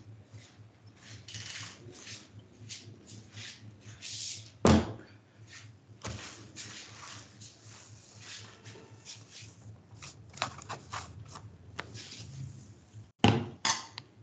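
Handling or room noises: small clicks and rustles over a low steady hum, with a loud thump about five seconds in and two more thumps near the end.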